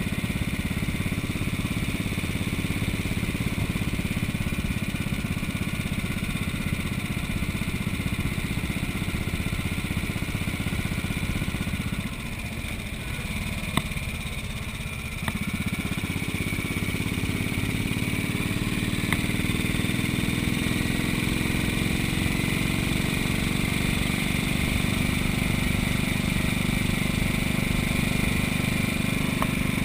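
1956 Moto Guzzi Falcone's single-cylinder engine running steadily while riding. About twelve seconds in it eases off and goes quieter for a few seconds, then picks up again with its pitch slowly rising.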